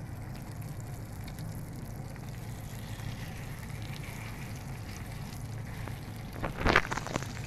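Salmon fillets frying in a pan with a steady sizzle. About six and a half seconds in, a brief clatter stands out above it.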